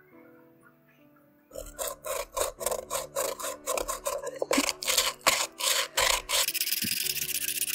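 Inside of a coconut-shell bowl being sanded by hand: scratchy back-and-forth strokes, about three a second, starting about one and a half seconds in, running together into a continuous fast rubbing near the end.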